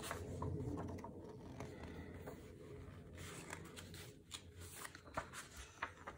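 Paper pages of a hardcover picture book being turned and handled by hand: soft rustles and light taps, scattered several times.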